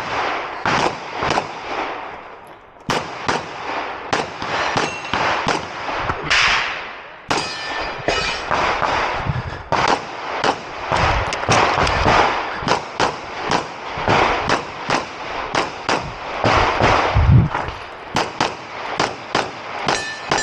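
Glock pistol firing rapid strings of shots, each crack followed by a short echo. There are brief pauses between strings, about two and seven seconds in.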